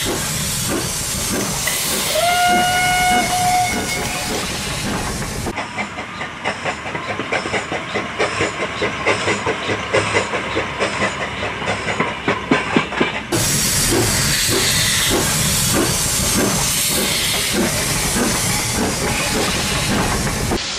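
Three early steam locomotives in turn, changing suddenly twice. First Planet gives one steam whistle blast of about a second and a half over hissing steam and chuffing. Then Lion chuffs with quick, regular exhaust beats, and then GWR Firefly chuffs more slowly over a steady steam hiss.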